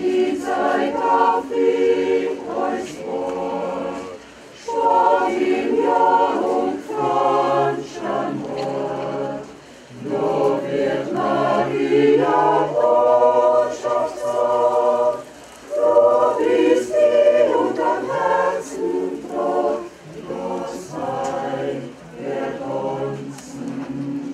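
Mixed choir of men's and women's voices singing a cappella, phrase by phrase, with short breaks between the phrases.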